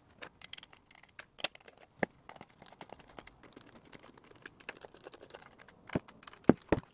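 Hand screwdriver turning small screws into the back plate of a metal guitar-pedal enclosure: scattered light clicks and ticks of the driver tip and screws against the metal, with a few sharper clicks about six seconds in.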